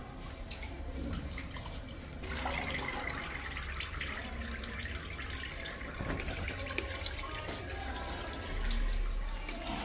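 Water splashing and dripping as raw goat offal is washed by hand in a steel pot of water, with a low bump near the end.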